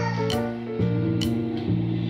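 Background music: sustained instrumental chords over a steady beat, with a percussive hit roughly every second.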